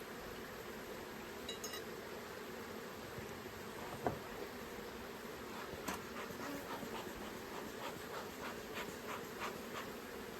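Honeybees buzzing around an open hive in a steady hum. There is a sharp knock about four seconds in. From about six seconds, a run of light clicks and scrapes follows, about three a second.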